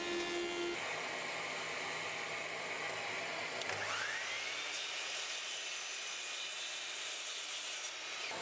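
A thickness planer running for just under a second, then a mitre saw: its motor spins up with a rising whine about halfway through, and the blade cuts through a board for about three seconds near the end.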